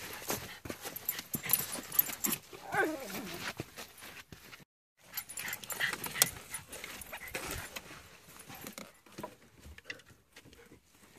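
Dogs scrambling and sniffing among driftwood logs: rustling and light knocks on wood and debris, with one short falling whine from a dog about three seconds in.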